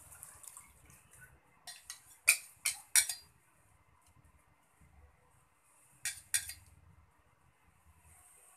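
Metal bowl and spoon clinking against each other and the wok as coconut milk is poured into a wok of jackfruit: a quick run of sharp clinks about two to three seconds in, and two more at about six seconds.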